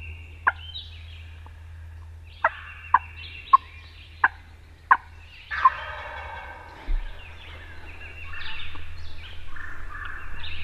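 Wild turkey gobbler gobbling about halfway through and again near the end, after a string of short, sharp calls in the first few seconds.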